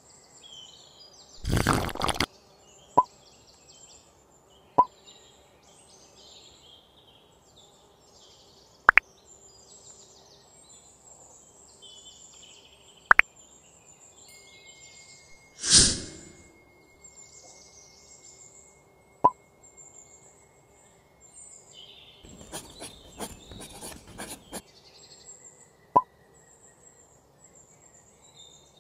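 Sharp isolated clicks and taps of small wooden parts of a handmade slingshot gun being handled and fitted, spaced several seconds apart, with two louder brief rustles and a later stretch of rustling handling. Faint high chirping runs in the background.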